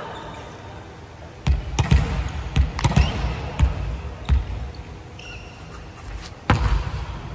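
A volleyball thumping on a wooden gym floor several times, then one hard hand strike on the ball about six and a half seconds in as it is served.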